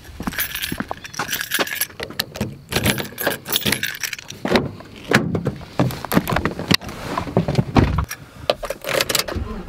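Keys jangling in hand with irregular clicks and knocks as a pickup truck's door handle is pulled and the door opened, and the driver climbs into the seat.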